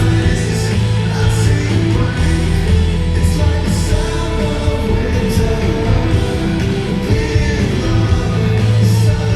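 Live rock band playing: electric guitar and bass chords, drums with cymbal crashes, and a lead vocal singing over them.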